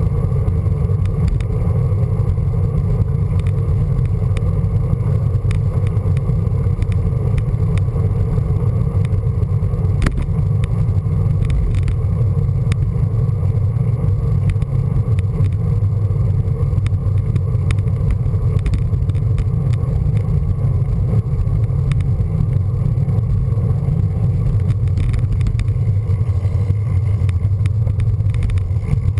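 Steady low rumble of wind buffeting the microphone of a camera mounted on a moving road bike, mixed with tyre and road noise.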